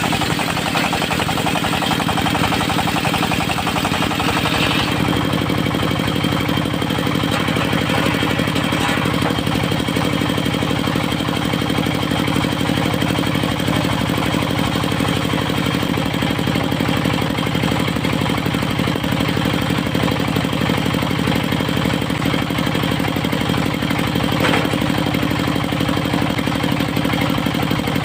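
Diesel engine of a locally built portable circular-saw sawmill running steadily. A brighter hissing layer over the engine stops about five seconds in.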